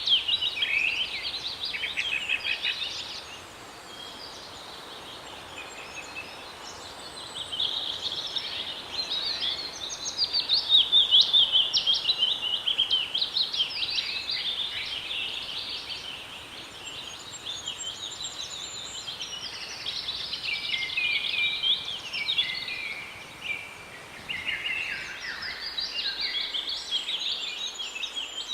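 A chorus of many small birds chirping and twittering, with dense overlapping calls that swell and ebb. A faint, thin, steady high tone runs beneath them and stops near the end.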